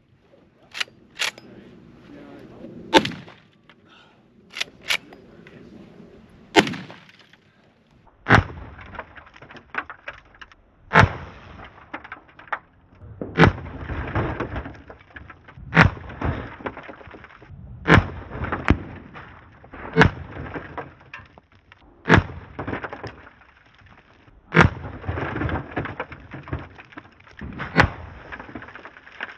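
A Big Horn Armory Model 89 lever-action rifle in .500 S&W Magnum fires about a dozen heavy shots, one every two to three seconds in the later part. Each later shot is followed by rocks shattering and fragments scattering.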